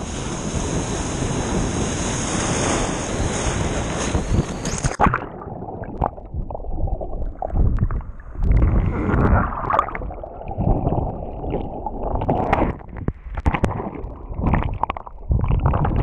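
Wind and breaking surf rushing over a sea kayak's deck. About five seconds in, the sound turns suddenly muffled as the kayak rolls over and the deck camera goes under: muffled underwater sloshing and gurgling with scattered knocks of water against the hull.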